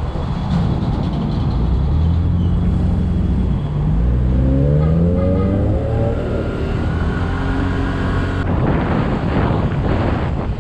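Yamaha Mio Gravis scooter's single-cylinder engine pulling away, its pitch rising for a few seconds and then holding steady. Wind noise on the helmet-mounted microphone grows near the end.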